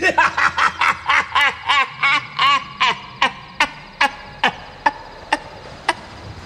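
A man's theatrical villain's 'ha ha' laugh: a long run of short bursts that slow down and fade, dying out about six seconds in.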